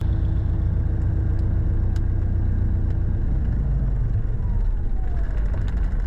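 Cessna 177RG Cardinal's four-cylinder Lycoming engine and propeller running steadily at low taxi power. About four seconds in, a faint whine falls in pitch.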